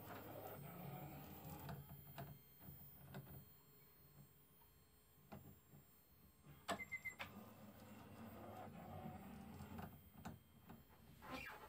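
Faint hum of the Pyroprinter pyrography machine's stepper motors driving the burner head across the plywood. The hum eases off for a couple of seconds midway, and a few scattered clicks cut through it.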